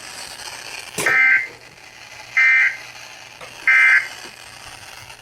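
Emergency Alert System end-of-message: three short, identical buzzy bursts of SAME data tones about 1.3 seconds apart, after a click about a second in. The bursts mark the end of the weather alert.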